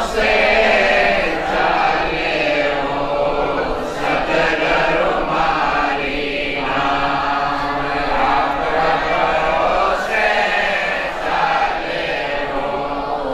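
Several voices chanting together without pause, their overlapping pitches blending into one continuous sound.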